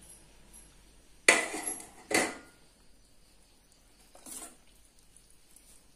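Metal spoon stirring thick broken-wheat porridge, scraping and knocking against the steel pot. Two loud strokes come close together a little over a second in, and a fainter one follows about four seconds in.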